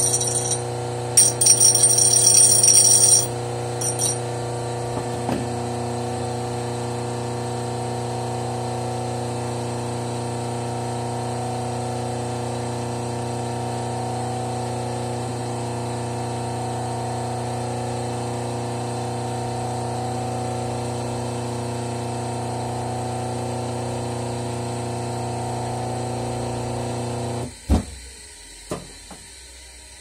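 WEG half-horsepower single-phase washing-machine motor with a run capacitor, running with a steady electric hum; it is running properly and not heating. For the first three seconds a loud shrill noise comes in short spurts over the hum, and near the end the hum stops suddenly with a couple of knocks.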